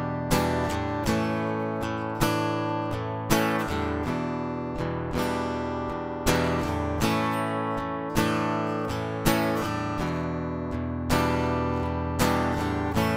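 Solo acoustic guitar playing an instrumental intro: chords picked or strummed with a sharp attack about once a second, each ringing out and fading before the next.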